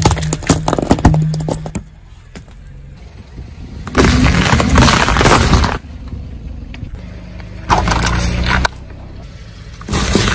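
A car tyre rolling over and crushing things: sharp cracking and snapping of a plastic toy over the first two seconds, then three bursts of crunching and squashing about four, eight and ten seconds in as cucumbers and fruit wedges burst under it. A low engine hum runs underneath.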